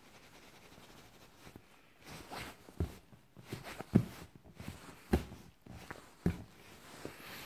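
Four or five dull thumps about a second apart, starting about two seconds in, with scuffing and rustling between, from a hand and a dog's paws on a leather sofa close to the microphone.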